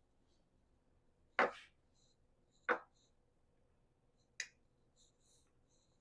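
Three sharp knocks of kitchenware, about a second and a half in, near three seconds and again after four seconds, the first the loudest, with faint high clinks between them.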